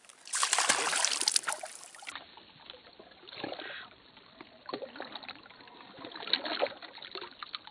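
Lake water splashing and sloshing against a giant snakehead held in the water on a lip grip as it is released over a wooden boat's side. There is a loud burst of splashing in the first two seconds, then intermittent smaller splashes and sloshing.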